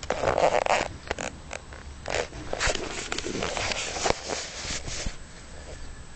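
An animal biting and chewing grass close to the microphone: a run of irregular crunchy snaps and rustles that dies down about five seconds in.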